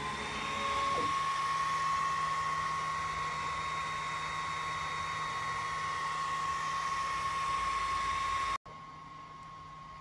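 JICCODA 10-watt diode laser engraver running: a steady rush of air from the laser head's fan and air assist, with a high steady whine. It cuts off abruptly near the end, leaving a fainter hum.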